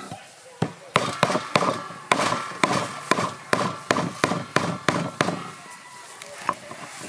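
Cleaver chopping a Feroniella lucida fruit on a wooden chopping board: a quick series of sharp knocks, about three or four a second, for some five seconds, then a single chop near the end.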